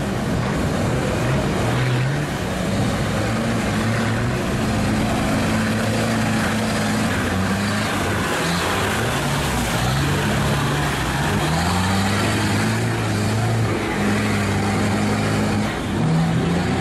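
Tuned UAZ off-roader's engine revving up and down again and again as it drives through deep mud, over a steady hiss.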